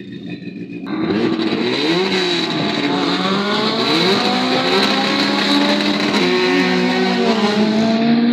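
Drag race cars launching hard about a second in, engines revving high and climbing through the gears, pitch rising and dropping at each shift.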